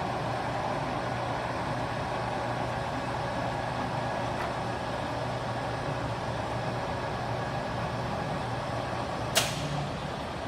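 Kingston HRC24100 heavy-duty gap-bed engine lathe running, a steady mechanical hum from its motor and headstock gearing. There is one sharp metallic clack near the end.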